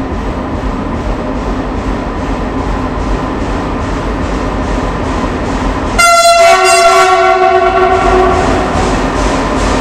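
A Renfe Class 253 electric locomotive hauling a steel-coil freight train rumbles steadily as it approaches through an underground station. About six seconds in, it sounds its horn: a brief higher note, then a lower note held for about two seconds.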